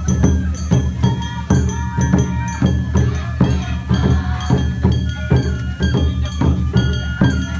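Awa Odori festival music: drums and percussion beating a steady, quick rhythm, with a high bamboo flute playing a melody over it.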